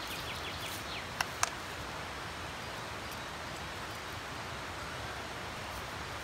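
Steady outdoor forest background with a short quick run of bird chirps at the start. Two sharp clicks come a little over a second in, about a quarter of a second apart.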